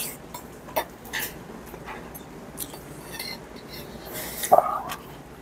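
Eating at a table: chopsticks clicking against metal bowls, with scattered small clicks and one louder clatter about four and a half seconds in.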